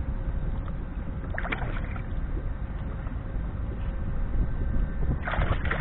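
Steady low rumble of wind and river water around the kayak, with two short splashy bursts, about a second and a half in and near the end.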